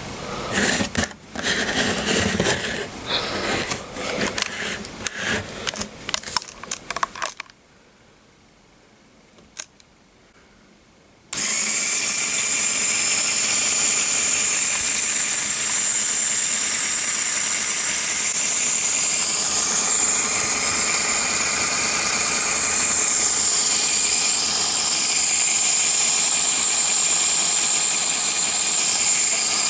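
Clicks and knocks of the Lego model being handled, a few seconds of quiet, then a Lego Power Functions motor starts suddenly and runs steadily, spinning a Lego centrifugal water pump through a step-up gear pair, with a hiss of water jetting from the outlet into the tub.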